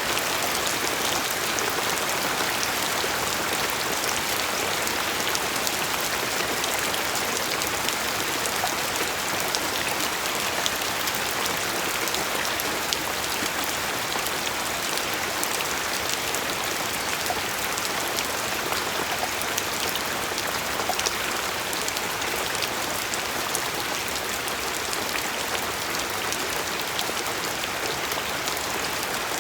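Steady rain falling, with a dense patter of individual drops over an even hiss.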